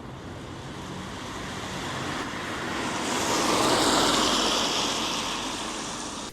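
A vehicle passing on a wet road: a rushing hiss of tyres that swells to a peak about four seconds in, then fades.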